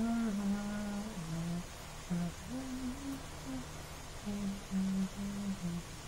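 A person humming a slow tune with closed lips: a run of held notes that step up and down in pitch, with short breaks between them.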